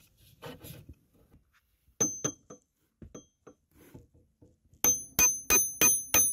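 A hammer striking a steel socket extension bar slotted through a homemade PVC-pipe tool, the bar ringing with each blow: two blows about two seconds in, then a quick run of about six near the end. The blows knock the fuel pump's large plastic locking ring anti-clockwise to loosen it.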